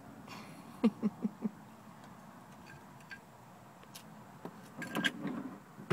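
Small metal wrenches clicking and clinking lightly as a toddler handles them and sets them down on a plastic toy counter, with scattered clicks and a busier cluster about five seconds in. About a second in come four short, quick voice sounds.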